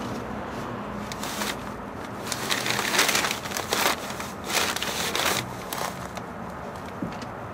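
Carpet rustling and scraping as it is dragged and smoothed by gloved hands across a truck cab floor, in a run of short rubbing strokes in the middle few seconds.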